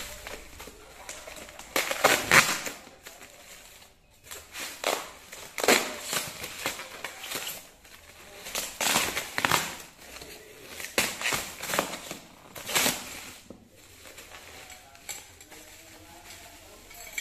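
Hands tearing open a parcel's packing: packing tape, foam sheet and plastic bubble wrap ripping and crackling in irregular bursts, the loudest about two seconds in.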